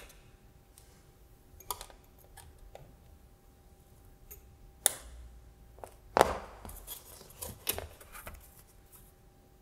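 Side cutters snipping the excess wire leads of through-hole resistors and capacitors on a circuit board: sharp clips a second or more apart, the loudest about five seconds in. About six seconds in comes a heavier clatter and rubbing, then a few lighter clicks as the cutters are set down and the board is handled.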